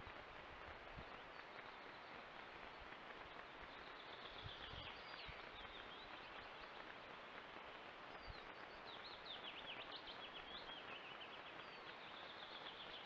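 Faint steady hiss of a trail camera's microphone, with a small songbird singing short runs of quick high chirps about four seconds in and again from about eight and a half seconds on. A few faint low thumps sound here and there.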